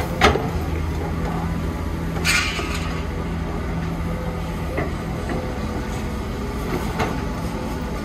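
Heavy diesel construction machinery, an excavator working with a dump truck, running steadily. A few sharp clanks sound through it, with a short hiss about two seconds in.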